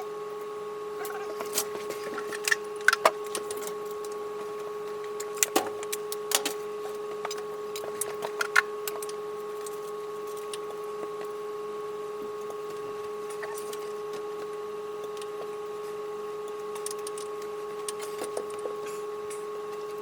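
A steady hum of several fixed tones, with scattered sharp clicks and knocks, most of them in the first half.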